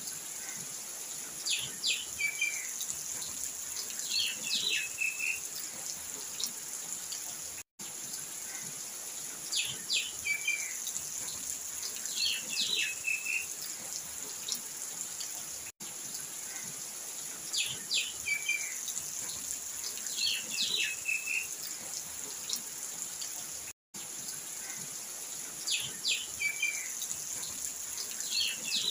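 Looped nature-ambience track: a bird calling in short chirpy phrases, twice in each cycle, over a steady high hiss. The loop restarts with a brief dead gap three times, about every eight seconds.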